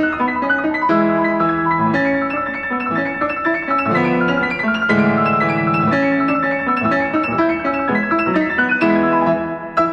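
Solo piano playing a brilliant, fast variation: quick right-hand figures high in the treble over marked left-hand chords, in a continuous stream of notes.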